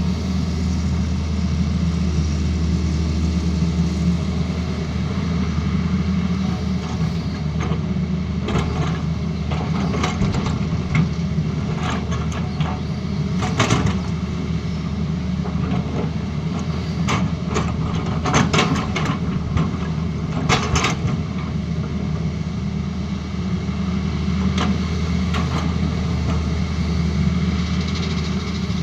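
Tata Hitachi Zaxis excavator's diesel engine running steadily, with a series of short sharp knocks and clanks through the middle, typical of the bucket working against the road surface.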